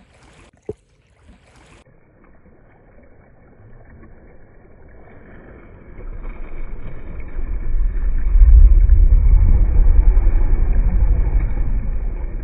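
River water washing around an elephant wading through it, with a low rumble of wind buffeting the microphone. The sound builds about six seconds in and is loudest in the second half.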